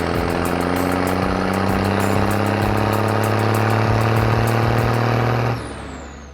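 Cartoon sound effect of a heavy vehicle's engine running steadily at one pitch, then cutting off about five and a half seconds in.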